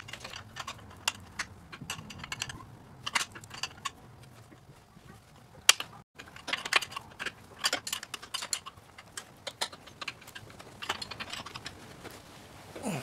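Plain open-end wrench clinking against a bolt head and the steel transmission bracket as it is refitted and turned a little at a time to tighten the bolt. The sound is a quick, uneven series of small metal clicks and clinks.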